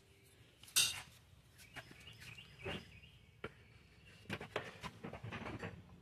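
A sharp knock about a second in, then scattered clicks and light metallic clinks, with a quick run of them near the end.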